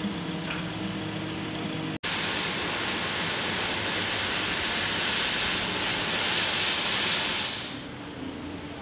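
Outdoor city ambience: a low steady hum for the first two seconds, then, after a cut, a louder even rushing hiss for about six seconds that fades down near the end.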